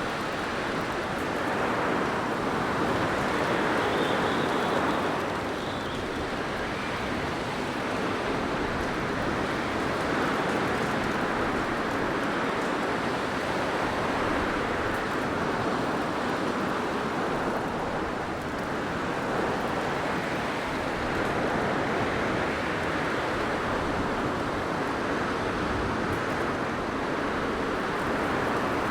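Blizzard wind blowing steadily, a dense rushing noise that swells and eases in slow gusts every few seconds.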